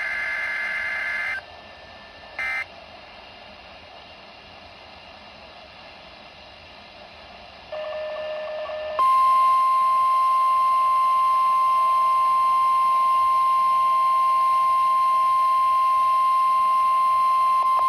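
NOAA Weather Radio Emergency Alert System test heard through the radio's speaker. A burst of screeching digital EAS header data tones ends about a second and a half in, with a short blip of the same sound a second later, then static hiss. Near the end a brief lower tone is followed by the steady high 1050 Hz warning alarm tone, held for about ten seconds.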